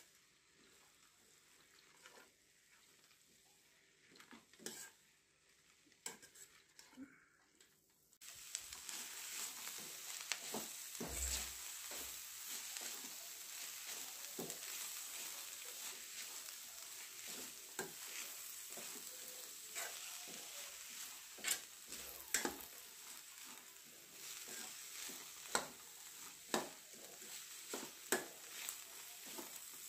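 Sessile joyweed greens frying in a stainless steel pan while a spoon stirs them, scraping and clinking against the pan. The first several seconds hold only a few scrapes; about eight seconds in, a steady sizzle starts suddenly and carries on under the repeated clinks.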